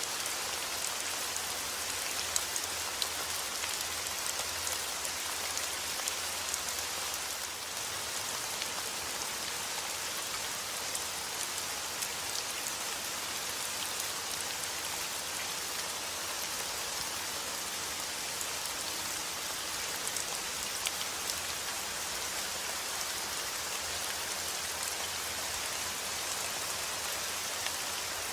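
Heavy rain falling steadily: a dense, even hiss with scattered sharp drop impacts.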